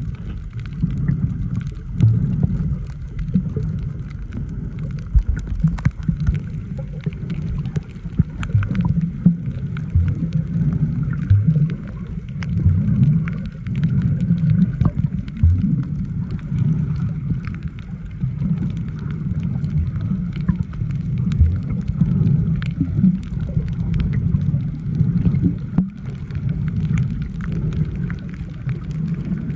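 Muffled underwater sound of a camera held beneath the surface: a low, fluctuating rumble of moving water with scattered faint clicks.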